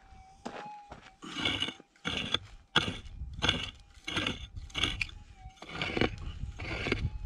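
A pick digging into stony, gravelly ground: a steady series of about eight strikes, roughly one every two-thirds of a second, starting about a second in, each a sharp hit with a crunch of soil and stones.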